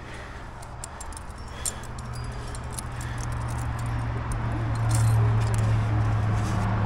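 Metal climbing gear (carabiners and cams racked on a harness) clinking and clicking in short irregular jingles as the climber moves and sorts gear. Under it, a steady low drone swells over the first few seconds and stays loud to the end.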